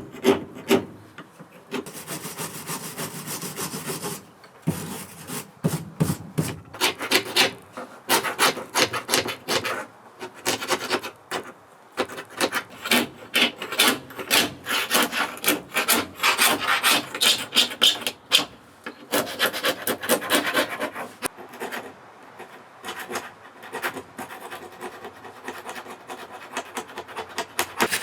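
A hand tool worked back and forth on old wooden boards, rasping in quick repeated strokes with short pauses between runs.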